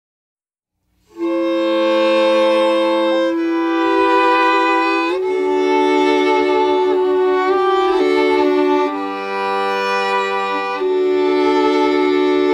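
Music starts about a second in: bowed strings playing slow, held chords that change every couple of seconds.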